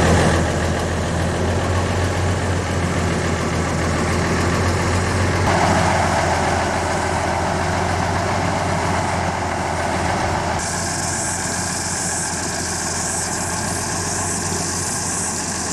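A motor vehicle's engine running steadily with a low hum under a wash of noise. The character of the noise changes abruptly about five and a half seconds in, and again near eleven seconds.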